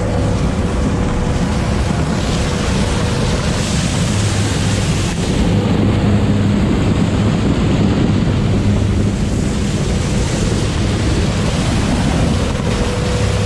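Sherp amphibious vehicle's diesel engine running steadily while water and broken ice slosh and splash against its hull, the splashing loudest around the middle.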